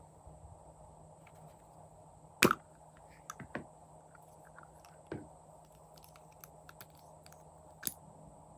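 Slime being pressed and worked by hand, giving sharp wet pops and clicks a few times, the loudest about two and a half seconds in.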